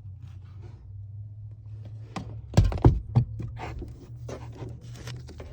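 A run of clicks and knocks from working on a corroded wiring connector during cleaning, with a few heavier thumps about two and a half to three seconds in, over a steady low hum.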